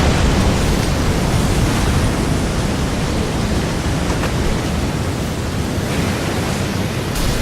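Designed tsunami sound effect: a dense, steady rush of crashing water and debris noise with a heavy low rumble. A brief sharp burst comes near the end.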